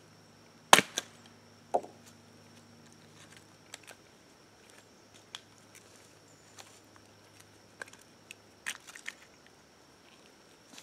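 Hatchet chopping down into an upright stick of wood standing on a log, splitting kindling: three sharp cracks within the first two seconds, the first the loudest. Light clicks and knocks follow as the split pieces are handled, with a small cluster near the end.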